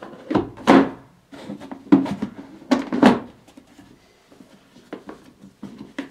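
Black plastic battery box lid being set back on and its latch tabs pressed shut: a few sharp plastic knocks and clicks, the loudest in the first three seconds and fainter ones near the end.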